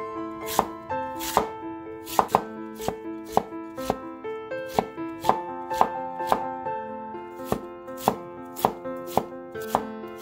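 Chinese cleaver chopping a white root vegetable on a wooden cutting board, in sharp regular strokes about two a second, over solo piano music.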